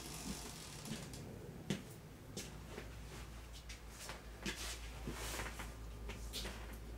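Handling noise from white cotton-gloved hands turning a beaded bracelet: soft rustling with scattered light clicks, the sharpest just under two seconds in, over a steady low hum.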